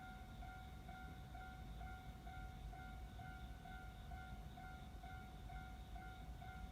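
Japanese level-crossing warning bell ringing, an evenly repeating electronic ding about twice a second, faint, over a low rumble.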